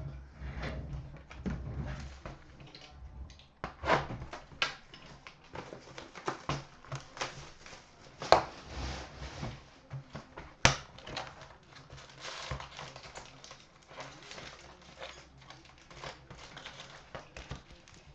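Crinkling and tearing of a sealed trading-card box's wrapping and packs as they are opened by hand, with sharp clicks and snaps, the loudest about four, eight and eleven seconds in.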